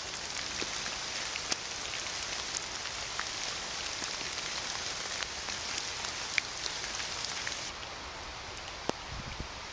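Steady outdoor hiss with scattered light ticks. It drops to a quieter level about three-quarters of the way through, and a couple of soft low thumps follow near the end.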